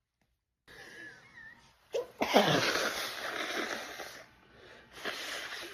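A woman sneezing during a sneezing fit: a faint breathy lead-in, then one loud sneeze about two seconds in, and a shorter second burst near the end.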